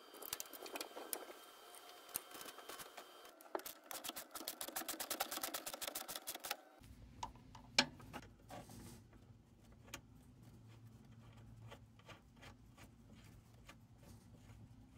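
Faint metallic clicks and clinks of hand work as a brake booster is fitted to the firewall, thickening into a fast run of even clicking. After a cut, sparse light ticks of a wrench being worked on a bolt under the dash.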